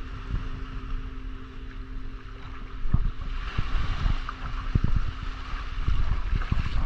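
Wind buffeting the microphone while small waves wash over sand and rocks at the water's edge, the wash louder from about three seconds in. A steady low hum underneath fades out about three seconds in.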